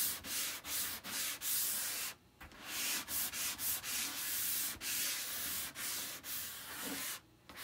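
Hand sanding a chalk-painted wooden egg cutout with a sanding block: quick back-and-forth scratchy strokes, about three a second, knocking back the fibres the paint raised and distressing the edges. There is a short pause about two seconds in.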